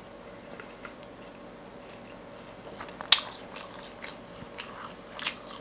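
A person chewing a mouthful of odading, Indonesian fried dough bread, with scattered small mouth clicks and one sharper click about three seconds in.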